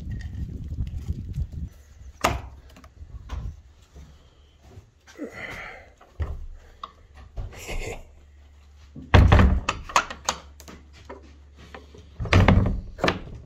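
Weathered wooden door with a metal barrel bolt being handled: the bolt is worked by hand and the door knocks and rattles in its frame. The loudest knocks come in two clusters, about nine and twelve seconds in.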